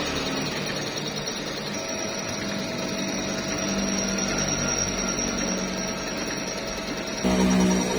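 Milling machine running steadily, its cutter skimming the face of a car cylinder head, a mix of machine noise and faint steady tones. About seven seconds in, a louder humming tone comes in suddenly.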